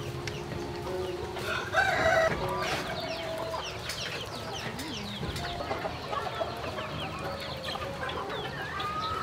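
Village chickens clucking, with a rooster crowing about two seconds in, and many short high chirps after it.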